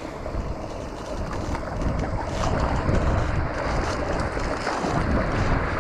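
Wind buffeting the microphone over the rush of creek water, with a hooked rainbow trout splashing at the surface as it is played in.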